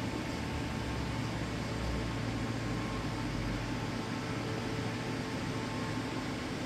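Heaters running with a steady blowing noise and a faint hum.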